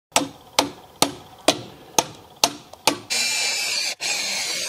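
Hammer striking a thin steel stake into the ground, seven blows about two a second, each with a short ring. Then a cordless drill runs steadily, driving a screw into the timber formwork board, with a brief pause near 4 s.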